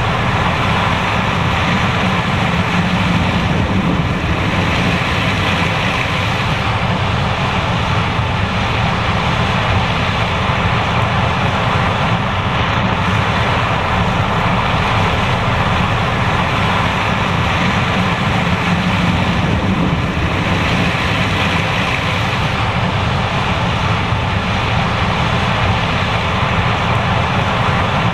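John Deere S780 combine running while harvesting corn: a loud, steady mechanical noise of engine and machinery that holds even throughout.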